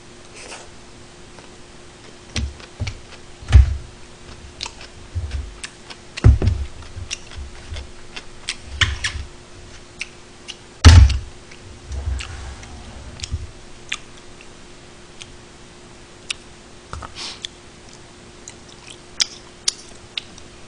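Close-miked chewing of mouthfuls of gimbap, with chopsticks clicking and tapping on the food trays. A few louder low thumps come about 3.5, 6 and 11 seconds in, over a faint steady hum.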